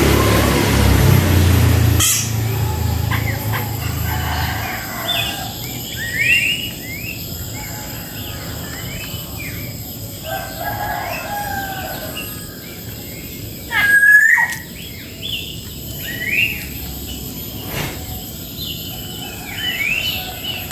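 Cucak jenggot (grey-cheeked bulbul) calling: many short chirps that glide up and down, with a louder sweeping call about two thirds of the way through. A low rumbling noise stops about two seconds in.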